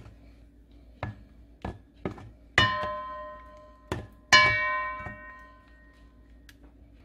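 A wooden spoon knocking against a metal mixing bowl while thick batter is stirred. A few dull knocks come first, then two sharp strikes a couple of seconds apart set the bowl ringing with a bell-like tone that fades away.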